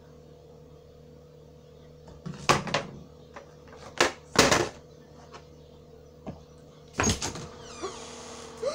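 A door being handled: a few loud bangs and knocks, about two and a half, four and seven seconds in, over a steady low hum.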